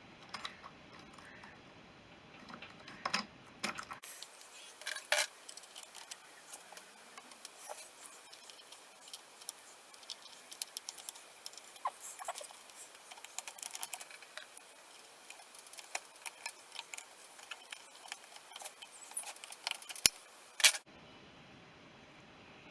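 Small metal parts and hand tools being handled during workshop assembly: scattered light clicks and taps, with a few louder clicks about three and five seconds in and two sharp ones near the end.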